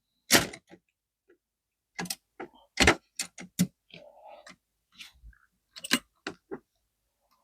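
Irregular sharp clicks and clacks, about a dozen, from the mechanism of an antique Chicago typewriter being worked by hand during a test after re-inking.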